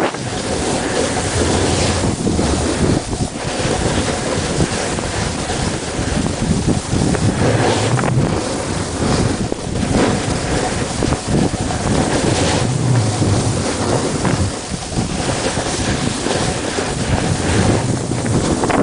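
Wind buffeting the microphone of a camera moving fast down a ski slope, a loud rushing noise with low gusty rumbles, mixed with the hiss and scrape of sliding over snow.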